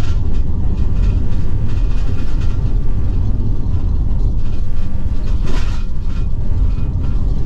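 Steady low road rumble inside the cab of a Ford E450 Class C motorhome on the move, with scattered clicks and rattles and a louder knock about five and a half seconds in.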